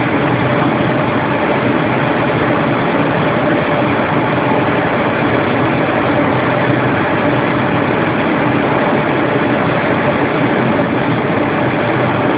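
A machine running steadily and loudly, an even noise with a faint hum in it that does not change.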